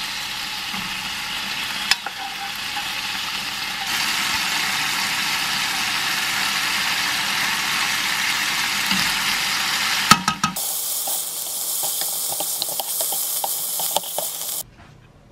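Shrimp and spaghetti sizzling in a frying pan, with a few sharp knocks. In the last few seconds a spatula stirs and tosses the pasta in the pan, making many small clicks, and the sound stops suddenly near the end.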